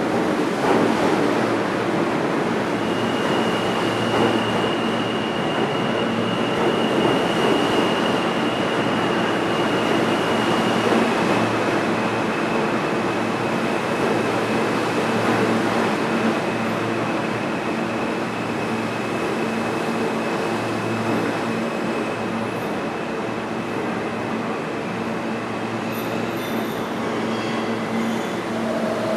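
R160B New York City Subway train slowing as it pulls into the station: a steady rumble and rattle of the passing cars, with a thin high wheel squeal that starts a few seconds in, drops slightly in pitch partway through, and stops a few seconds before the end.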